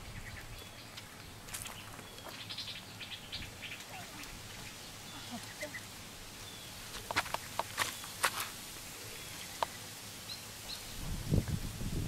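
Light clicks and knocks of wooden stakes being handled and set in the ground, with a cluster of sharp clicks about seven to eight and a half seconds in and a few low thumps near the end. Faint short bird chirps come through now and then.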